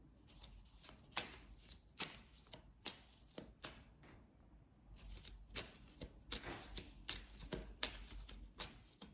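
A deck of oracle cards being shuffled by hand, with a run of faint, irregular soft clicks and a brief pause near the middle.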